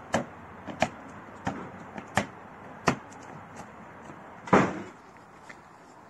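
Footsteps, one about every two-thirds of a second, followed by one louder thump about four and a half seconds in.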